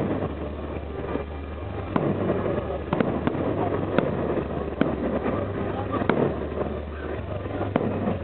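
Fireworks salute: a string of sharp bangs from bursting shells, roughly one a second, over a background of voices and a low hum that comes and goes.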